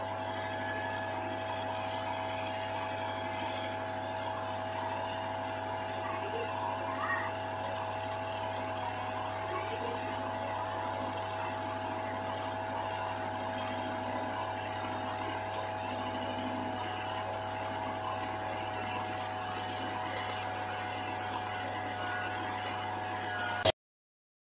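Electric mixer grinder motor running steadily, its steel jar grinding wet donut batter into a whirling vortex. The sound cuts off suddenly near the end.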